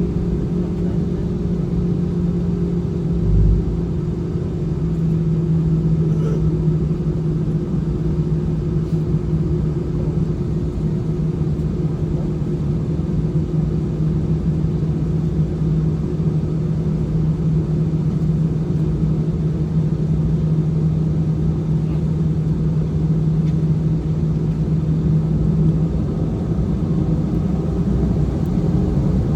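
Airliner's engines running steadily, heard from inside the passenger cabin as the plane taxis before takeoff, with one low thump about three and a half seconds in.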